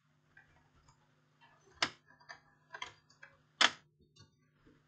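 Plastic bottom access cover of a Dell Inspiron 1525 laptop being pried off by hand, its clips releasing: two sharp snaps about two and three and a half seconds in, with a few smaller clicks between, over a faint low hum.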